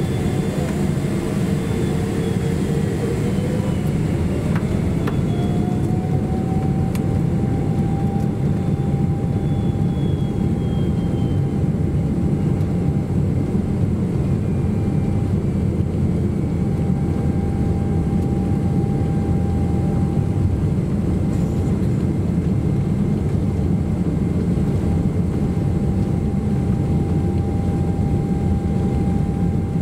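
Boeing 777-300ER's GE90 turbofan engines spooling up to takeoff thrust, heard inside the economy cabin. A whine rises in pitch over the first several seconds and then holds steady above a loud, even engine roar.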